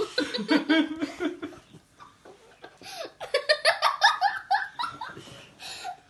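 A young child laughing and giggling in two bouts, a short one at the start and a longer, high-pitched run of quick laughs from about three seconds in.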